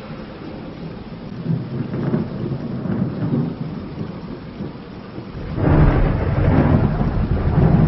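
Thunderstorm: steady rain with low rolling thunder, and a much louder peal of thunder breaking about five and a half seconds in and rumbling on.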